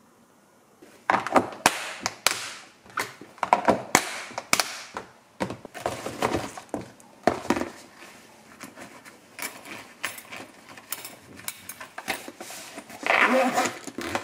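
Plastic lunch-box lids being put on and their latch clips snapped shut: a run of sharp clicks and knocks. The boxes are then handled into an insulated lunch bag, and a zipper is drawn closed near the end.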